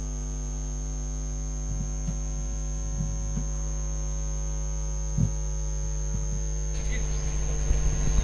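Steady electrical mains hum with a thin high whine above it, a few faint soft knocks, and a brief rustling noise near the end.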